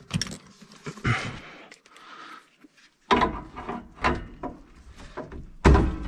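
Irregular knocks, clicks and clunks of hands working at a gas furnace's sheet-metal cabinet and fittings, heavier and more frequent from about three seconds in.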